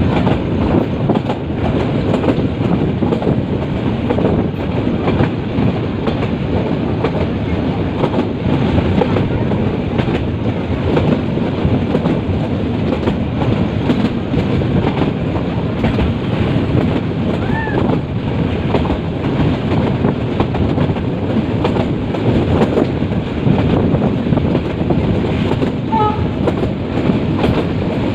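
Metre-gauge passenger train running along the track: a steady rumble with the clickety-clack of wheels over rail joints. Brief high squeaks come about two-thirds of the way through and again near the end.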